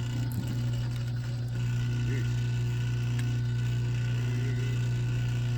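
Wire-stripping machine working heavy copper cable: a steady low hum with light mechanical clicking as the thick insulated wire is fed through the blades.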